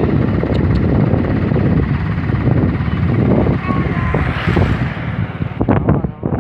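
A moving vehicle's road and engine noise mixed with wind buffeting the microphone: a loud, uneven rush with no clear pitch.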